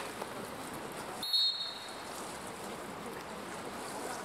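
A referee's whistle is blown once, short and shrill, about a second in, over the steady splashing of water polo players swimming in the pool.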